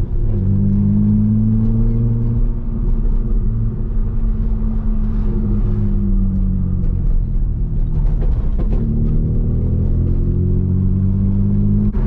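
BMW Z3 with its muffler deleted, engine and exhaust droning at a steady cruise. The note sags slightly through the middle and climbs again near the end.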